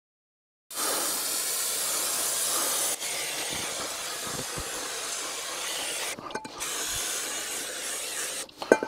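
Aerosol brake cleaner sprayed onto a car's rear drum brake shoes and drum in long, steady hisses, washing off brake dust after sanding. The spray starts about a second in, breaks briefly near the end and stops just before it.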